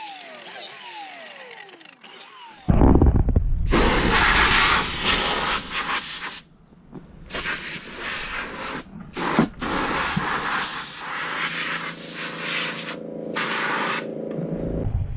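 Compressed air hissing from a hand-held air gun in long bursts with short breaks, while an air compressor runs with a steady hum underneath from about the middle.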